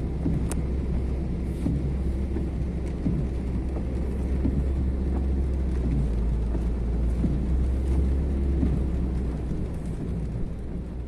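A car driving slowly through deep floodwater, heard from inside the vehicle: a steady low engine and road rumble with water rushing and sloshing around the wheels.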